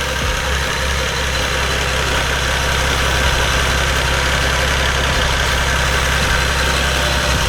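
Toyota 2JZ straight-six engine idling steadily, with the drive belt still squealing on the new pulleys: the belt is the wrong size and needs replacing.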